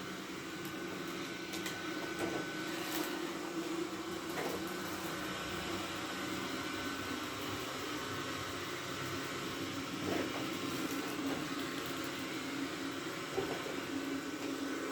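Roborock Q7 Max robot vacuum running steadily on carpet with its suction boosted, a constant motor whir with a few brief clicks as it works.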